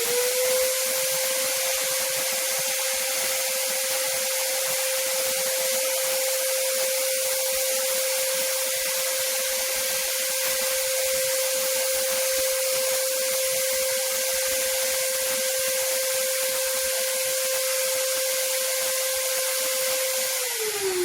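A 2000-watt wet-and-dry shampoo vacuum cleaner's suction motor switched on in suction mode: it whines up to a steady high hum with a loud rush of air, then is switched off near the end and winds down, falling in pitch.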